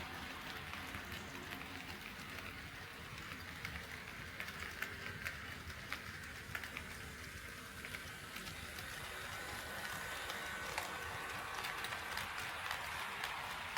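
HO scale model train running on KATO Unitrack: a steady rolling rattle with scattered sharp clicks as the wheels cross the track joints, and a faint steady whine in the second half.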